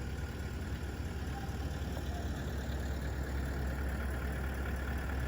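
A vehicle engine idling with a steady, even low rumble.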